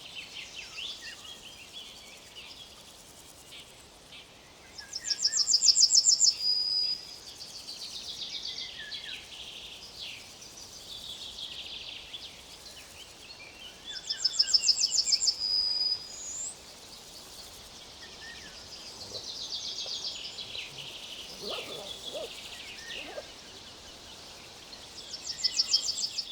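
Songbird singing a loud, fast trilled phrase that ends on a short held note, three times about nine seconds apart, with other birds chirping and twittering more softly in between.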